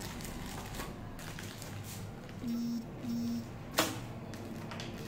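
Plastic wrapping and bubble wrap crinkling and rustling as it is handled and pulled back from the stove. About halfway through come two short steady tones, then a sharp click, the loudest sound.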